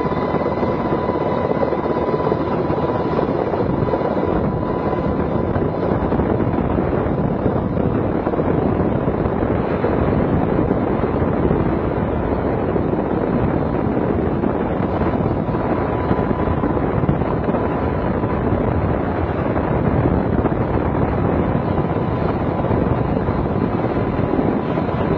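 Helicopter in flight: a steady, loud rush of rotor and engine noise, with a thin steady whine above it.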